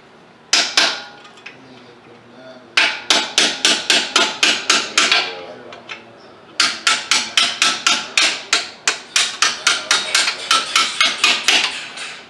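A hammer striking the brake pad retaining pins on a BMW X5M's brake caliper to drive them out. It lands two blows, then a run of about ten quick taps, then after a short pause a longer run of about four to five sharp metallic taps a second.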